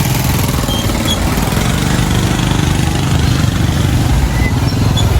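A small motorbike engine running close by, a steady rapid chug of firing pulses.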